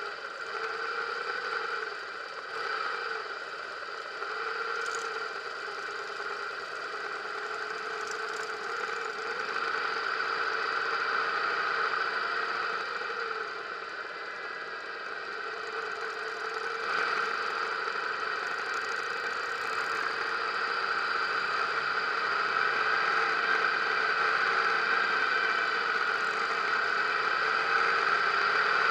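Harley-Davidson motorcycle engine running at low speed as the bike rolls out with a group of other motorcycles. It grows louder and steadier in the second half as the bike picks up speed on the open road.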